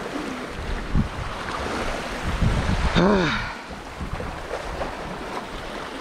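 Sea waves washing and splashing against shoreline rocks, with wind rumbling on the microphone. About three seconds in, a person gives a short exclamation whose pitch rises and falls.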